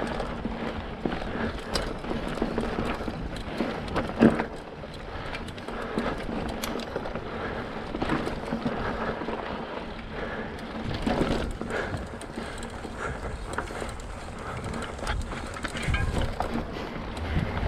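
Specialized Rockhopper mountain bike ridden along a dirt trail: tyres rolling over the ground with the bike rattling and knocking over bumps, and one sharp knock about four seconds in.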